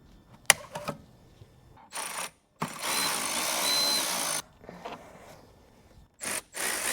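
Cordless power driver or drill spinning in bursts: a couple of short blips, then a run of about two seconds with a faint high motor whine, a brief blip, and another run starting near the end. A sharp click comes about half a second in.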